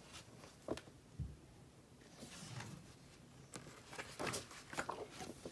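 Pages of a thick photo magazine being turned by hand: faint paper rustling with several short flaps and taps, and one dull thump about a second in.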